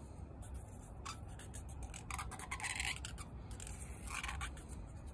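Felt-tip marker scratching around a 19 mm hole in a circle template onto sheet steel, marking a hole to be drilled: three short scratchy strokes, the longest about two seconds in.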